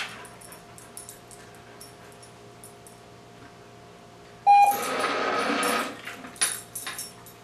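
Manners Minder remote treat dispenser giving a short beep and then rattling for about a second and a half as it turns and drops treats. A few light taps follow.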